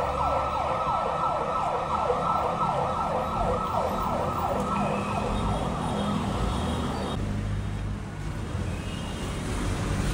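Emergency vehicle siren in a fast yelp: quick falling pitch sweeps, about four a second, cutting off about seven seconds in. Road traffic rumbles underneath.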